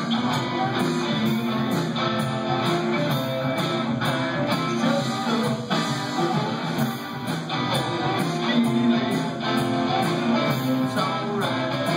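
Live rock band playing amplified, with strummed electric guitar over drums and bass.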